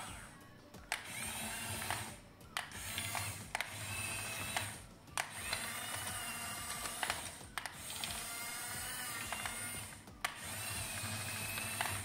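Small electric gear motors of a Hengjian toy RC excavator whining in about five runs of a second or two each as it drives and turns on its tracks, the pitch wavering within each run, with a click each time a motor stops and starts.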